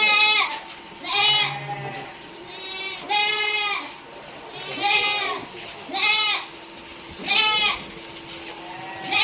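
Goats bleating over and over, one loud wavering bleat about every second or two, several in a row.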